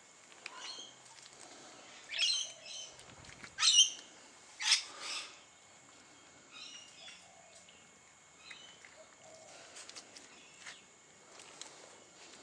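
Birds calling: a handful of short, sharp calls, loudest about two to five seconds in, followed by fainter, scattered chirps.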